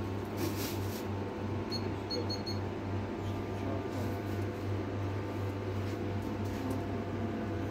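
Four short, high electronic beeps about two seconds in, the keypad of a digital shop scale as a bag of eggs is weighed, over a steady electrical hum.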